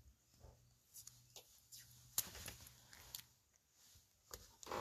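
Faint, short scratchy rustles of low-tack tape being handled and pressed down over a plastic stencil and cardstock, the loudest about two seconds in and again near the end.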